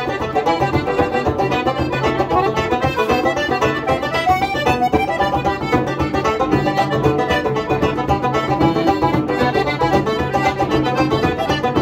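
Piano accordion and bodhrán playing a traditional tune together, with the bodhrán keeping a steady beat under the accordion's melody.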